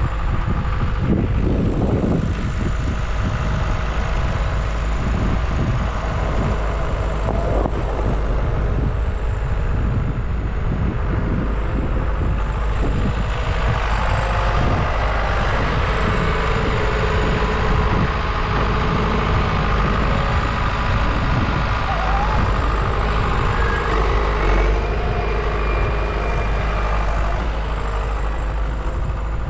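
A vehicle engine running steadily throughout, with a continuous low rumble and a faint steady whine that grows stronger through the middle of the stretch.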